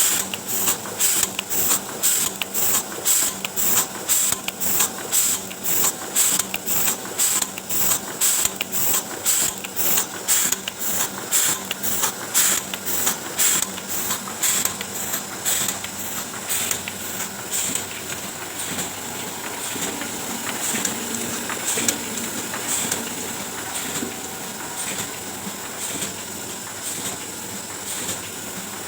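Oliver 72 sheet-fed offset printing press running, a rhythmic clacking of about two strokes a second over a steady hiss. About halfway through, the clacking fades away and only the steady running hiss is left.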